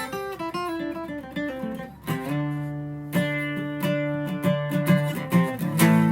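Acoustic guitar strummed and picked, chords ringing and changing every second or two: an instrumental passage of a live song, with no singing.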